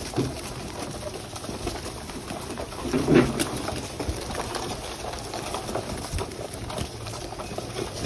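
Flock of domestic pigeons crowding a grain bowl: wings flapping and fluttering, beaks pecking at grain, and pigeons cooing, with a louder flurry about three seconds in.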